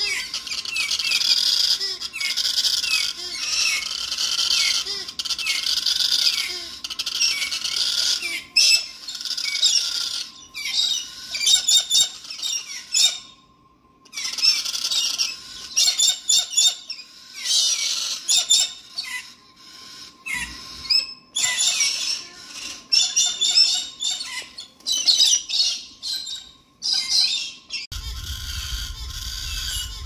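Galahs (rose-breasted cockatoos) calling: runs of repeated high-pitched screeching calls, broken by short pauses and one brief silence about halfway through. Near the end wind rumbles on the microphone.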